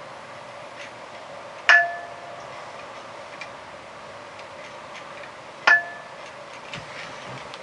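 A pair of 30 lb metal dumbbells clinking together at the top of overhead presses: two sharp metallic clinks about four seconds apart, each ringing briefly.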